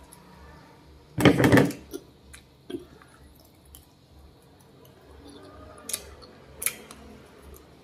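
A hand takes small black berries from a stainless steel bowl, making a brief loud rustle about a second in; then come a few soft wet mouth clicks and smacks as the berries are eaten close to the microphone.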